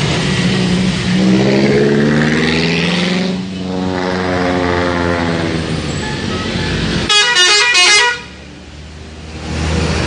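Telolet multi-tone musical air horn on a PO Hariyanto bus, playing held horn notes and then a rapid run of high notes about seven seconds in that cuts off suddenly. The bus's engine runs underneath.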